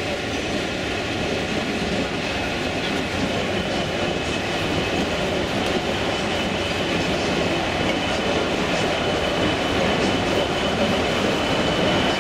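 A model goods train running along the layout track: a steady rolling rumble with light wheel clatter.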